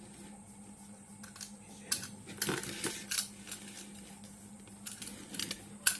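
Scattered sharp clicks and clatter of small hard objects being handled, a few in quick succession about halfway through and a louder one near the end, over a steady low electrical hum.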